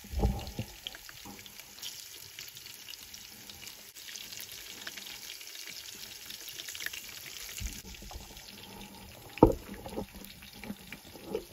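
Chopped onions, greens and tomato sizzling in a steel pot over a wood fire. A knife cuts tomato pieces into the pot, then a spoon stirs and scrapes against the pot's side. There are two loud knocks, one at the start and a louder one about two seconds before the end.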